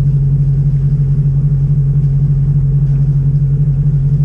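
Sailing yacht's inboard engine running at a steady speed under motor: a loud, even drone with a fast regular pulse.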